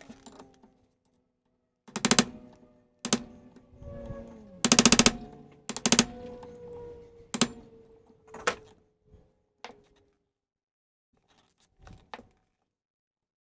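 Sped-up hand-tool work on a golf cart's front wheel hub, with several short bursts of rapid hammering and metal clanks. The longest and loudest burst comes about five seconds in, and a few quieter knocks follow near the end.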